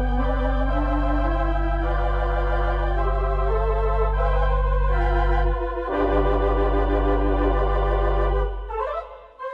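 Organ music: sustained low bass notes under a slow melody with a wavering vibrato, breaking off near the end.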